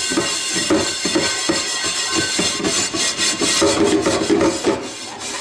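A mesh dish scrubber rubs quickly back and forth over a rusty cast-iron frying pan in soapy water, scouring off the rust, with background music playing.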